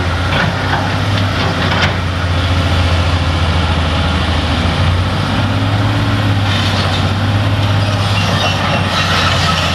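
Excavator diesel engine running steadily with a deep, even hum, and a few faint knocks over it.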